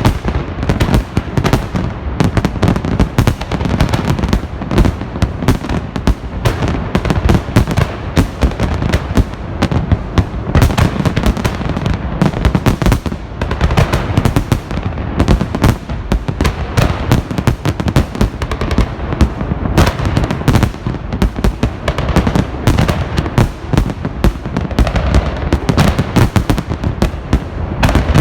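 Festive fireworks salute: a dense, unbroken barrage of bangs and crackles, many bursts a second.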